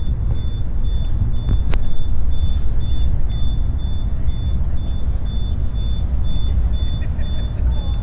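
Steady, loud low rumble that swells and fades unevenly, with a faint high beep repeating about twice a second.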